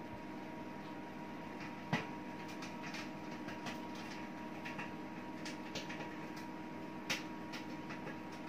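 Sharp microwave oven running steadily with a hum while heating cheese into crackers, with scattered sharp pops and ticks, the loudest about two seconds in and again about seven seconds in.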